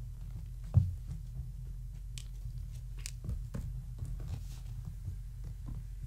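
Kittens scampering and playing on a blanket over foam floor mats: light scuffles and taps, with one louder thump about a second in, over a steady low hum.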